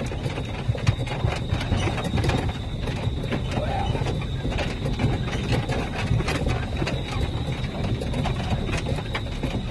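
A vehicle driving over a rough dirt track, heard from inside the cabin: a steady low rumble of engine and tyres, with frequent knocks and rattles as it bumps over the ruts.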